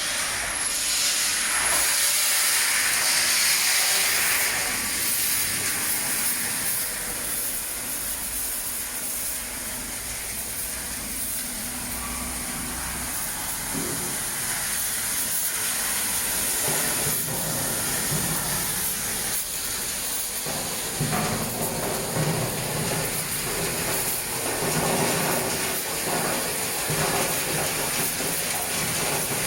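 High-pressure water jets spraying inside a drum-type produce washing machine: a loud, steady hiss that starts suddenly, with a low rumble and light rattling joining in about halfway through.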